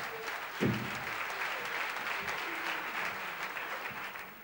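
Theatre audience applauding, the clapping fading out near the end. A short, loud low sound cuts through about two thirds of a second in.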